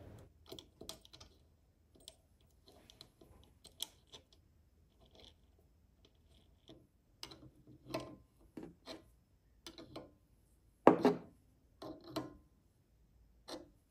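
Scattered small metal clicks and taps as a bolt with a lock washer and flat washer is threaded by hand into the engine's output shaft through a centrifugal clutch, then an open-end wrench is fitted on the bolt head, with the loudest knock about eleven seconds in.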